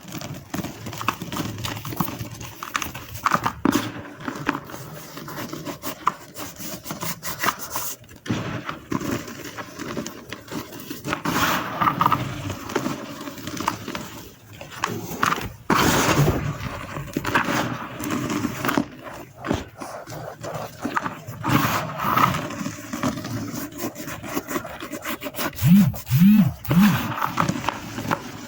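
Dry gym chalk being crumbled and rubbed by hand, a continuous powdery crunching and scraping with many small crackles and louder swells. Near the end come three short low-pitched sounds.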